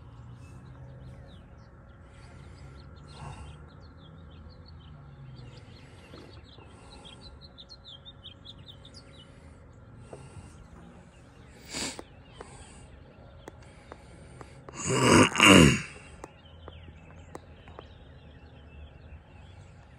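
Faint low steady hum with birds chirping, and a sharp brief click about twelve seconds in. About fifteen seconds in comes the loudest sound: a person's loud, short vocal sound, not words, falling in pitch.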